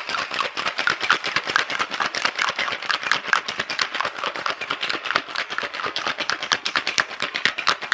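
Stainless steel cocktail shaker shaken hard, ice rattling inside it in a fast, steady clatter that keeps up for the whole time.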